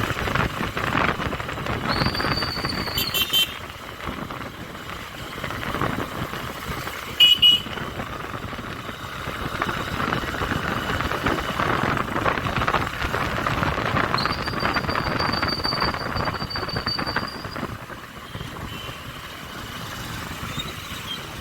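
Honda SP125 motorcycle riding through city traffic, with wind and road noise over the engine. Two short horn toots sound about three and seven seconds in, the second the loudest.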